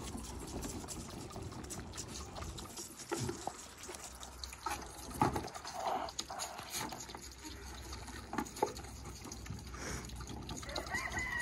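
Goat kids suckling from bottle nipples on a multi-bottle feeder rack: irregular wet sucking, slurping and smacking clicks. A high-pitched call starts near the end.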